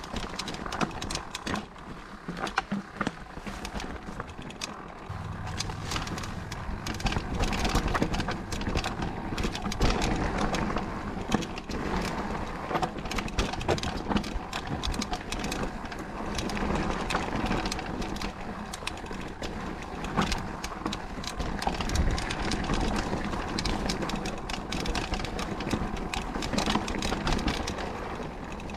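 Mountain bike ridden over a rough dirt trail: steady tyre and wind noise with many quick rattles and knocks from the bike.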